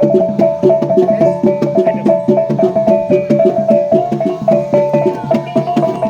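Music: a repeating melody over fast, even percussion strokes.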